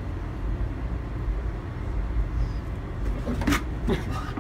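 Steady low background rumble, with a few short sharp sounds about three and a half seconds in.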